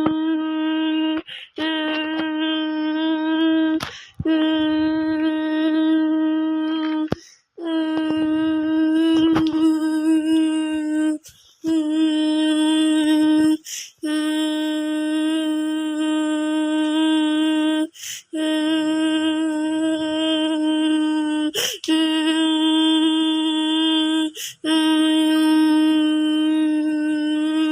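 A voice processed through a 4ormulator v7 vocal effects unit, held as a series of about nine sustained tones. All are on the same flat, unwavering pitch, each one to four seconds long, with short breaks between them.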